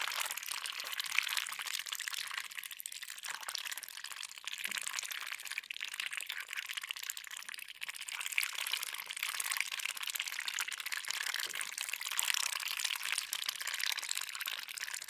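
Ducks dabbling at peas and pea microgreens in water: a steady run of quick, wet clicks and slurps from their bills.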